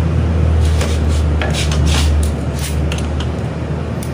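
Hand tools clinking and scraping on the metal parts of a scooter engine as the carburettor end is fitted up: short, irregular taps and rubs over a steady low hum.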